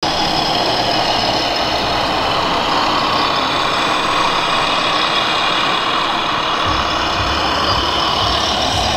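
Steady engine-like idling sound, with a deeper low rumble joining about seven seconds in.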